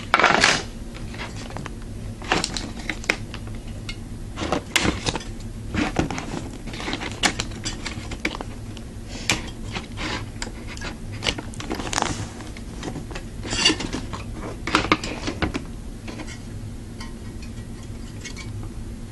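Irregular clicks, taps and light clattering as the fans and their clips are worked off a Cooler Master V6GT CPU cooler's finned heatsink by hand, with a few louder clacks scattered through.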